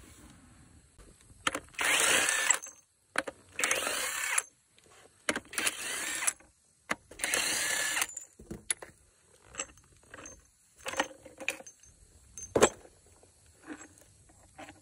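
SATA cordless impact wrench running on the nuts of a truck wheel hub in four bursts of about a second each. Scattered metal clinks and knocks of parts being handled follow.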